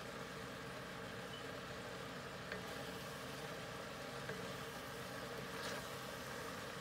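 Steady hum and hiss of a kitchen stove area while a stir-fry of vegetables and shredded chicken cooks in a cast iron skillet, with a couple of faint clicks about two and a half and four seconds in.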